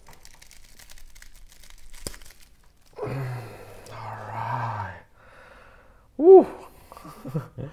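Hands working a plastic Chewbacca action figure, faint rustling and small clicks with one sharp click about two seconds in, as the head is forced onto the neck joint. Then a man's low straining voice is held for about two seconds without words, and a short vocal exclamation comes about six seconds in.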